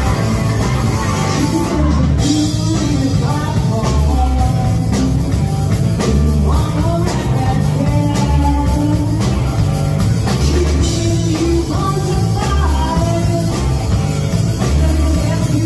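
A live rock band with electric guitars, bass and drums playing at full volume with a steady beat, and a woman singing lead over it.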